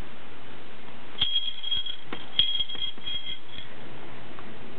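A baby's silver metal rattle shaken in small jerks: a few clicks, each followed by a high, brief jingling ring, from about a second in to past the middle.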